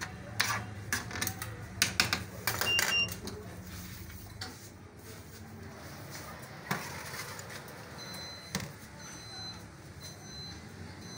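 A spatula clacking and scraping against a pan of cooking chicken, a quick run of sharp knocks in the first few seconds, then an oven door knocking twice. A short high electronic beep repeats in the second half over a steady low kitchen hum.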